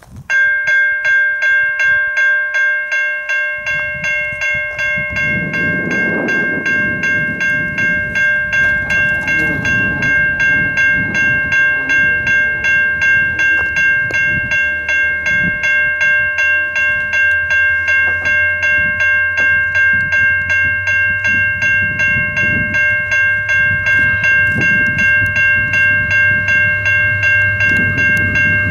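Diesel locomotives hauling a passenger train approach, their low engine rumble growing louder through the second half. Over them sounds a loud, steady high-pitched drone of several fixed tones, pulsing a couple of times a second, which starts abruptly at the outset.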